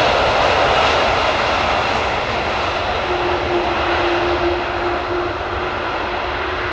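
Jet airliner engines giving a loud, steady rushing noise that slowly fades, with a steady hum coming in about three seconds in.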